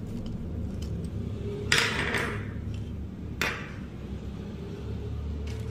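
Two sharp clacks about a second and a half apart as a screwdriver and a round plastic bulb holder are put down on a tabletop, over a steady low hum.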